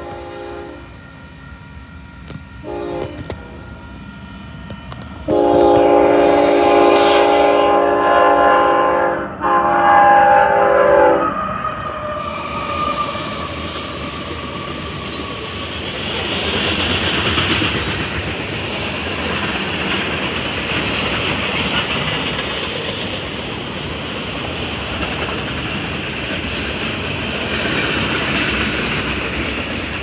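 Freight train locomotive horn sounding several blasts, the longest about four seconds, its tone dropping in pitch as the locomotive passes close by. Then freight cars rolling past, wheels clattering steadily over the rail joints.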